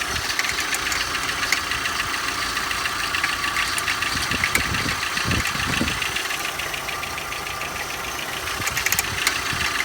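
Skoda Octavia engine idling cold with a fast, even ticking over the running sound, a few sharper clicks near the end: the unexplained foreign noise the owner hears from the engine when it is cold.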